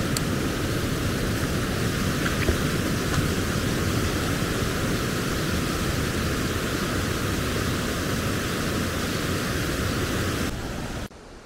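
Steady rush of a rocky mountain stream cascading over boulders, a dense, even noise that cuts off suddenly near the end.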